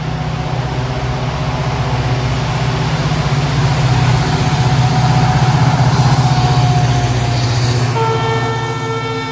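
WDP4B diesel-electric locomotive passing close by, its EMD two-stroke V16 diesel engine throbbing and growing louder toward the middle. About eight seconds in, the locomotive's horn starts a steady blast.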